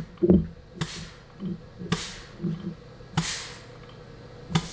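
Short blasts of shop compressed air from a blow gun into the 3-4 clutch port of a 4L60E transmission case through a test plate, heard as three brief hisses a little over a second apart, with dull low knocks between them.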